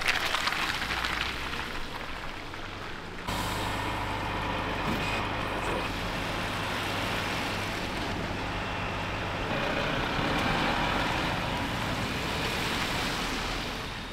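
Road traffic passing, then from about three seconds in a tow truck's engine running steadily with a low hum.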